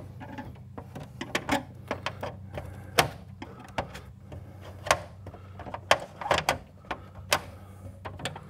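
Irregular clicks, knocks and scrapes of a screwdriver and a thick aluminum service wire being worked into a lug inside a metal breaker panel, over a steady low hum.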